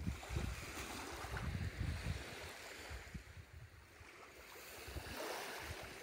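Small Baltic Sea waves lapping gently on a sandy, pebbly shore, with wind buffeting the microphone in the first two seconds; a soft wash of water swells about five seconds in.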